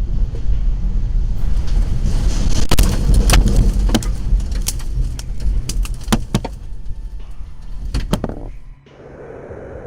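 Tornado winds rumbling heavily through a garage as the building is torn apart, with repeated sharp bangs, cracks and rattles of debris and structure being struck. The din cuts off suddenly near the end, leaving a quieter steady noise.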